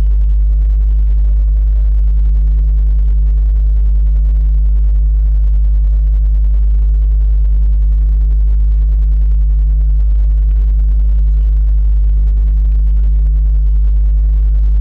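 A loud, steady low-pitched hum that holds one pitch and never changes.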